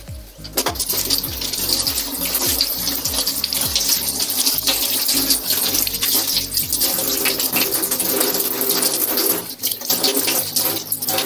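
Kitchen tap turned on about half a second in and running into a stainless steel sink, the water splashing as scallions are rinsed under the stream. The flow briefly dips near the end.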